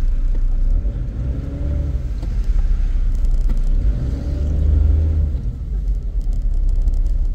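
Tractor engine pulling a loaded trailer, heard from inside a car over a steady low rumble; its pitch rises and falls twice as it revs.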